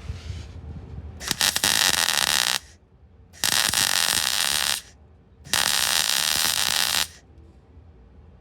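Welder arc running in three short bursts, each about a second and a half, starting and stopping abruptly: stitch-welding a steel repair panel onto a car's sill and wheel arch.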